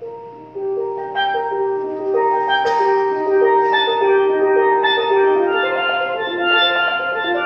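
A solo steelpan playing a quick melody, the struck notes ringing on over one another; it starts soft and swells louder within the first second.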